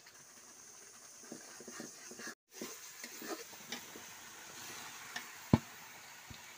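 A metal spatula scraping and stirring spices in hot oil in a karai, then chunks of raw green jackfruit tumbled in from a bowl and sizzling. A single sharp knock about five and a half seconds in is the loudest sound.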